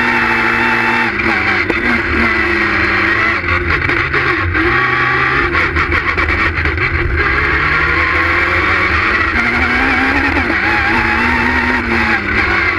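Citroën Saxo S1600 rally car's 1.6-litre four-cylinder engine at speed, heard from inside the car. The revs drop with a run of sharp crackles a few seconds in, stay low briefly, then climb again under acceleration about eight seconds in.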